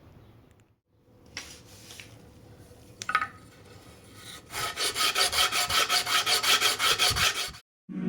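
Abrasive rubbing on wood: a few scattered scrapes, then fast, even back-and-forth strokes at about eight a second that stop abruptly near the end.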